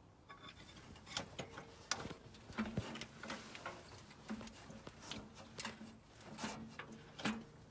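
Scattered light clicks and metallic knocks, irregular rather than rhythmic, from hands and tools working an engine onto its mounts with a jack. A faint steady hum joins in about a third of the way through and stops shortly before the end.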